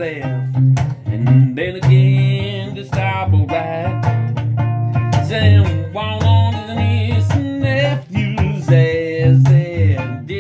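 A song: a voice singing over a plucked string instrument, with a strong bass line.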